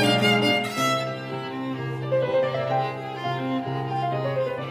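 Background instrumental music: a slow, bowed-string melody over a held low note, busier and louder for the first second, then softer.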